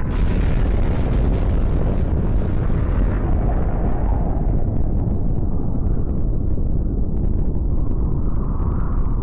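Outro sound effect: a sudden loud blast of noise with a deep rumble that carries on, its high hiss slowly dying away over the following seconds.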